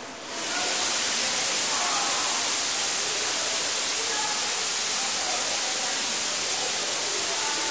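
Greenhouse misting system spraying water: a steady high-pitched hiss that switches on abruptly about a third of a second in, with faint voices murmuring beneath it.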